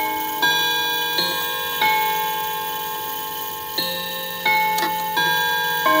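Cathedral chime clock's hammers striking its long metal chime rods, playing a chime melody. The notes come about two-thirds of a second apart, each ringing on, in groups of four with a pause of about two seconds between groups.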